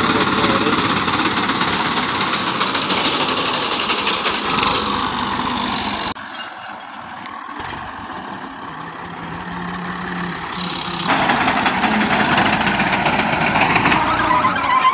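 Massey Ferguson 240 tractor's three-cylinder diesel engine running as the tractor drives a front-mounted reaper through standing wheat. The sound drops abruptly and turns duller about six seconds in, then grows louder again from about eleven seconds.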